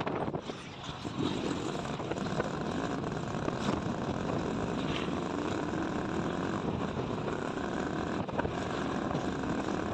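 A vehicle running steadily, with an even rumble and hiss; the level dips briefly just after the start, then holds steady.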